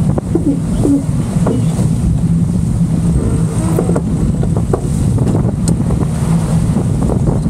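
Steady low rumble of wind buffeting the microphone, with a few faint knocks scattered through.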